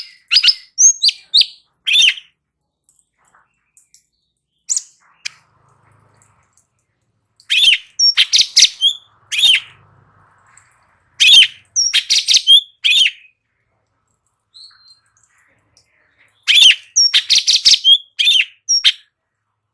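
Cucak cungkok singing in loud bursts of rapid, high chirping notes. There are about five phrases, each a second or two long, with short pauses between them.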